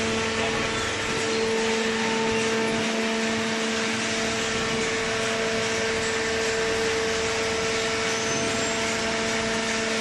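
Cardboard baler machinery running steadily: an even electric-motor hum with a higher whine over a constant hiss, with no change in load.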